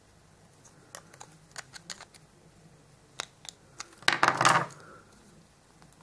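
Light clicks and scrapes of a knife tip levering at a press-fit wheel on a small die-cast metal toy van, then a louder clatter of handling lasting under a second, about four seconds in.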